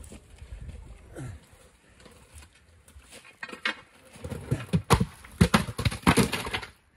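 A large boulder scraping and knocking over bedrock and loose stones as a trail crew levers it slowly downslope with a steel rock bar. A few knocks come early, then a dense run of loud scrapes and thuds from about four seconds in that stops just before the end.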